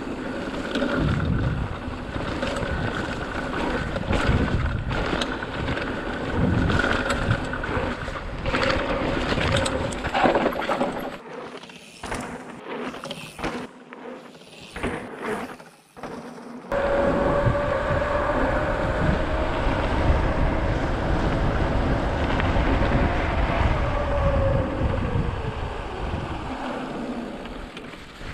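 Electric mountain bike ridden over a forest trail: a steady whine from the pedal-assist motor, with wind on the microphone and rattling from the bumpy ground. It goes quieter with separate knocks for a few seconds past the middle, then comes back loud, and the whine falls in pitch near the end.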